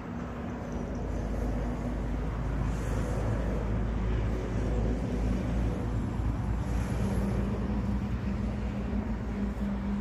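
An engine running, a steady low rumble with a hum that builds over the first few seconds and then holds.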